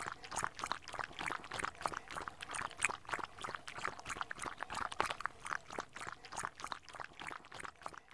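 A small dog lapping water from the trough of a handheld travel water bottle: a quick, irregular run of wet laps, several a second.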